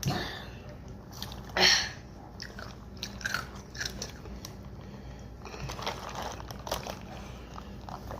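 People gulping and swallowing carbonated Sprite, chugging it as fast as they can: a run of short, irregular mouth and throat sounds, with one louder breathy burst about a second and a half in.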